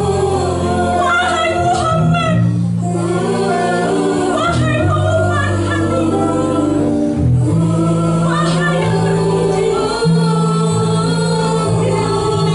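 Choir singing a slow song over held low accompaniment notes that change every two to three seconds.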